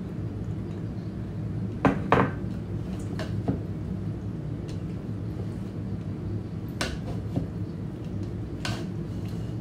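Spatula knocking and scraping against a mixing bowl as a salad is tossed, with a pair of sharp knocks about two seconds in and a few more scattered later. A steady low hum runs underneath.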